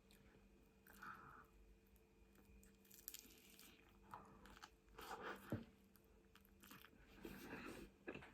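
A person eating close to the microphone: faint chewing and biting, with a few crunchier bites about halfway through and near the end.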